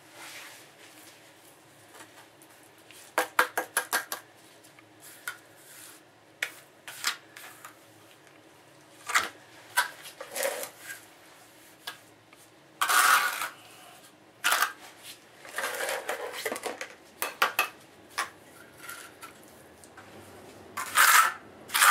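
Steel trowel scraping and clinking against a plastic bucket and wet mortar as mortar is scooped out and packed around a floor drain. A quick run of sharp clicks comes about three seconds in, with several longer scraping strokes later.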